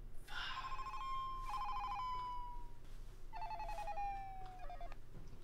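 Phone ringtone ringing twice: each ring is a short run of electronic notes ending in a held tone that slides slightly down.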